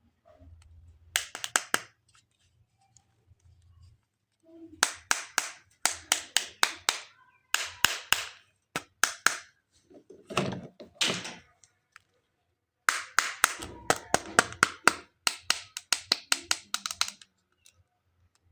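Toys and their packaging being handled up close: runs of quick, sharp clicks and taps come in several bursts, with a few duller knocks about ten seconds in.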